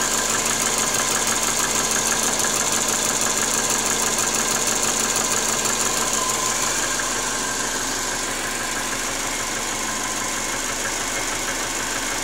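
Subaru Forester SF5 turbo's flat-four engine idling cold with a rapid, even knock from the fourth cylinder, which the owner takes for piston slap on the unwarmed engine. The sound eases slightly after about seven seconds.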